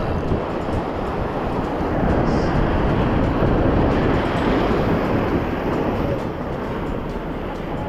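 Steady rushing noise of wind and surf. It swells louder in the middle and eases near the end.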